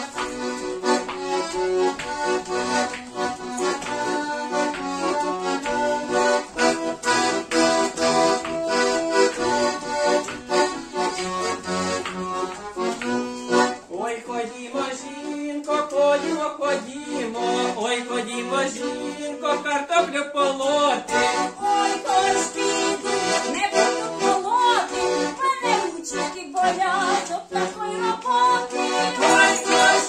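Button accordion playing a lively Ukrainian folk dance tune, with hand-held rattles shaken in time. Voices come in over it for a few seconds around the middle.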